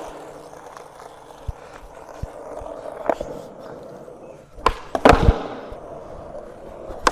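Skateboard wheels rolling on wet concrete, with a sharp tail pop and then the board and wheels slamming down about five seconds in, as in a flip-trick attempt.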